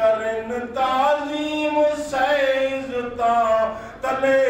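A man chanting a naat unaccompanied, his single voice drawing out melodic phrases whose pitch glides up and down, one after another.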